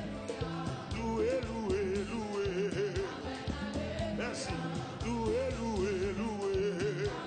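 Live gospel band music: a melody line with a wavering vibrato over steady bass notes and regular drum hits.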